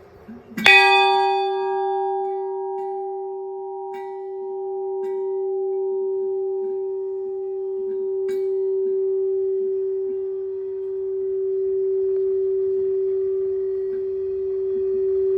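A large temple bell is struck once, about a second in, and rings on with a long, steady hum that slowly swells and fades. Its higher overtones die away over several seconds.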